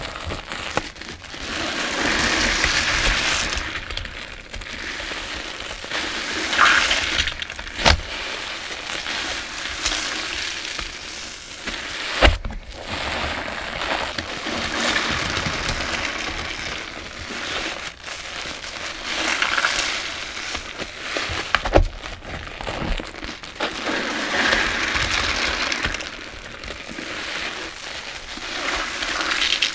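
Wet sponges thick with shampoo suds squeezed by hand again and again: squelching and crackling foam with soapy water streaming back into the tub, swelling and easing every few seconds. Three sharp clicks stand out, about eight, twelve and twenty-two seconds in.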